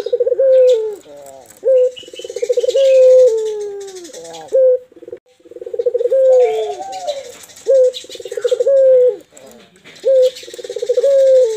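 Barbary doves (puter) cooing in a repeated rhythm: long trembling coos that slide down in pitch at the end, alternating with short clipped notes. This is the loud, steady 'gacor' cooing used as a lure call to set other doves cooing.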